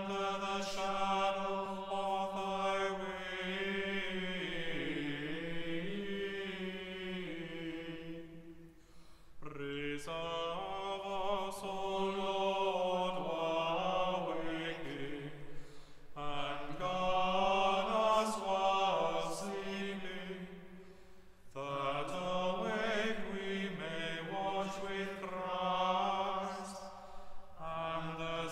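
A small choir of students and staff singing a slow chant, in four long phrases with brief breaths between them.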